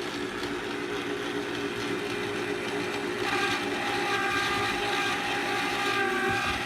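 Electric ice cream maker's motor running steadily as it churns, a constant hum with a higher whine joining about three seconds in.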